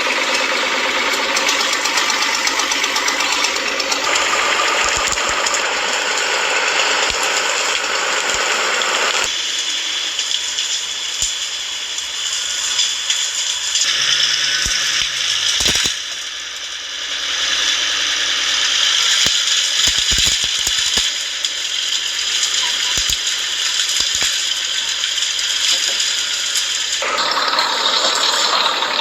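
International Harvester TD9 crawler bulldozer being driven, its diesel engine chugging under the clatter and rattle of its steel tracks. The sound changes abruptly several times.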